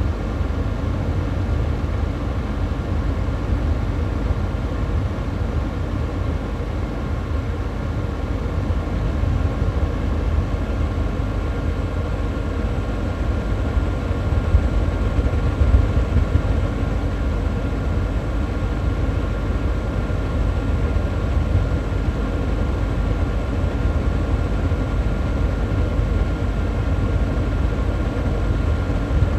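Xiaomi Mi Air Purifier fan running on its high setting, close-miked: a steady rush of air, heaviest in the low end, with a faint steady whine above it.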